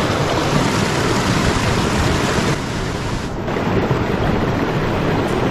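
Mountain stream rushing over boulders and small rapids: a steady rush of water, dipping briefly about two and a half seconds in.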